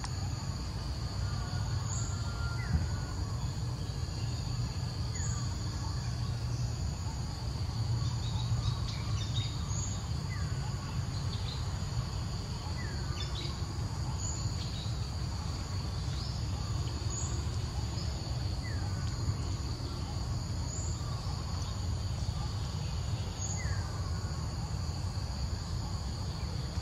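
Forest ambience: a steady, high-pitched drone of insects under a constant low rumble, with a bird giving short falling chirps every few seconds.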